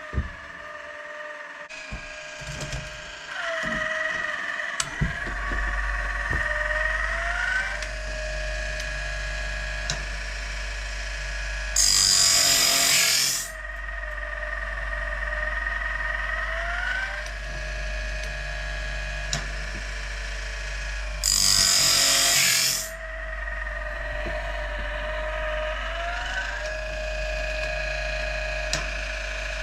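A machine runs steadily with a low hum and pitch that rises and falls in a repeating cycle. Twice, about nine seconds apart, a loud hissing burst lasts about a second and a half.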